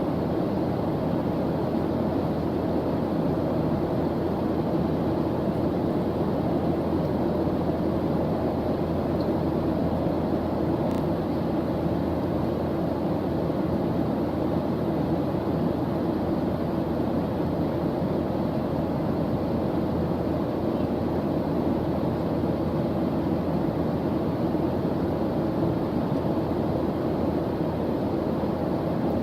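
Steady white-noise background track: an even, low rushing hiss that never changes.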